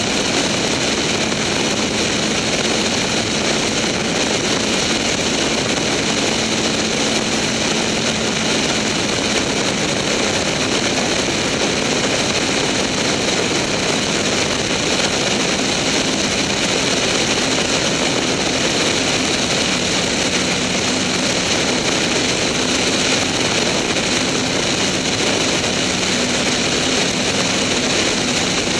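In-flight drone of a Lancair 360's four-cylinder Lycoming 360 engine and propeller on approach to land, mixed with heavy rushing wind on a camera mounted outside under the wing. The noise is loud and steady throughout, with a faint hum underneath whose pitch shifts slightly a couple of times.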